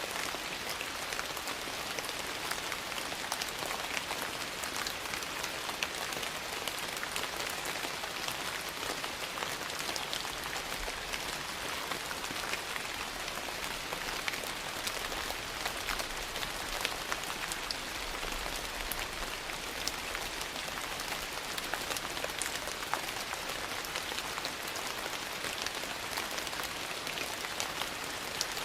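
Steady rain: an even hiss of falling rain with many small sharp drop ticks scattered throughout.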